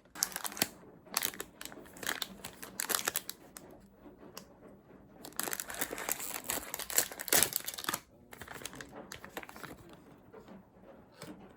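Packaging being handled and unwrapped: irregular crinkling and rustling, busiest past the middle and softer after about two-thirds of the way through.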